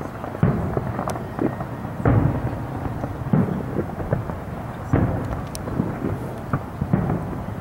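Aerial fireworks shells bursting: a string of deep booms about every second or two, each trailing off in a rumble, with smaller pops and crackles between them.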